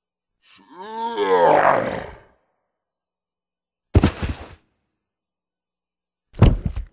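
Sound effects: an animal roar of about two seconds, its pitch bending up and then down, followed by two short, sharp noisy hits about two and a half seconds apart.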